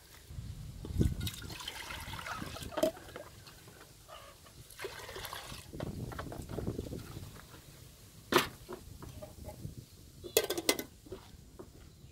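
Water sloshing and pouring in an aluminium cooking pot, in stretches, with a few sharp knocks; the loudest knock comes about two-thirds of the way through.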